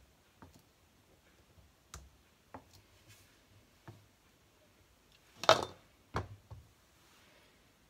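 Twist-off lid being screwed onto a glass jar of hot jam, giving a few small clicks, then a louder clatter and two knocks about five and a half seconds in as the jar is turned upside down and set on the wooden board.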